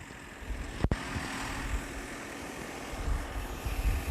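Backhoe loader's engine running while the backhoe arm digs. The low rumble grows louder about three seconds in, and there is a brief cut-out in the sound just under a second in.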